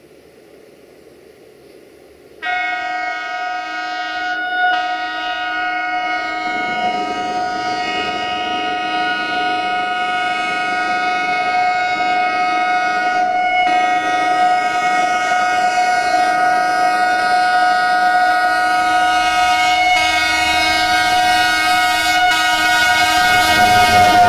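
Train air horn sounding one long held blast, a chord of several notes, starting suddenly about two seconds in and growing slowly louder as the train approaches.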